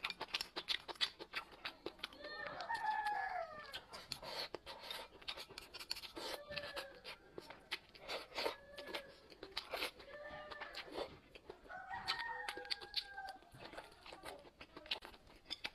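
Many sharp clicks and crunches, as of close-up chewing, with short high-pitched calls every couple of seconds that have a bird-like rise and fall.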